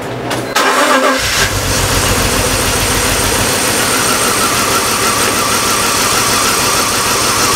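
BMW 325xi's M54 inline-six being cranked over by the starter for a compression test on cylinder five. The cranking starts about half a second in with an even chugging beat of compression strokes, and keeps going steadily.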